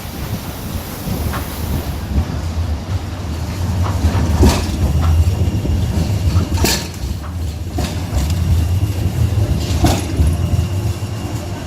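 Sheffield Class 399 tram-train running on rails: a steady low rumble with a few sharp clunks, about four and a half, six and a half and ten seconds in.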